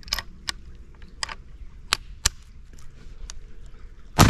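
Several sharp metallic clicks as the 1873 Springfield trapdoor rifle is handled and cocked, then near the end a single loud shot from its black-powder .45-70 load, the report trailing off in a long echo.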